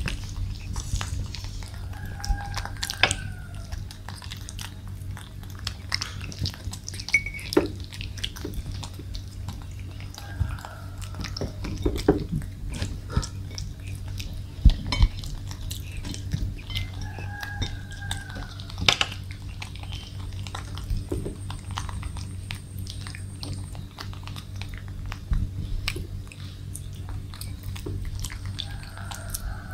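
Baby monkeys biting and chewing pieces of pumpkin: wet smacking and many small irregular clicks, with a few short high squeaks now and then.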